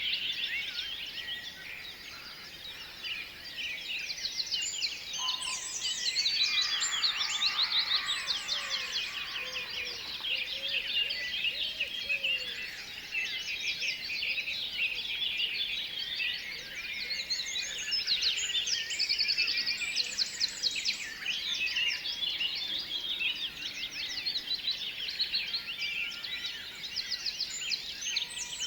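A dense chorus of tropical birds, many calling at once with fast, high chirps and trills that never pause, and some lower warbling notes between about five and twelve seconds in.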